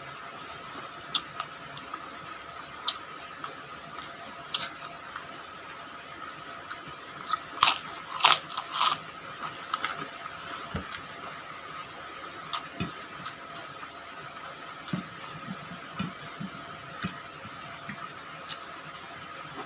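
A person biting into and chewing crispy fried food close to the microphone, with scattered crunches and a louder run of crunching about halfway through. A faint steady hum sits underneath.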